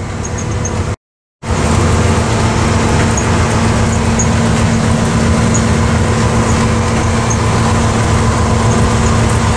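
Diesel locomotive engine running steadily at low speed, heard from inside the cab, over the steady rumble of the train rolling on the track. The sound cuts out completely for a moment about a second in.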